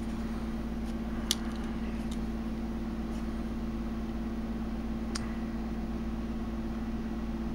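A steady low hum with a couple of fixed tones, from an unseen machine or electrical source in the room. Two light clicks, about a second in and about five seconds in, come from a plastic DVD case and its paper insert being handled.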